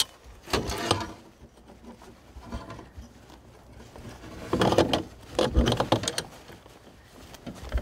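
A steel muskrat body-grip trap being squeezed and reset by hand: its springs and jaws click and scrape, with a short clatter about half a second in and a cluster of clicks and knocks later, the loudest a low knock.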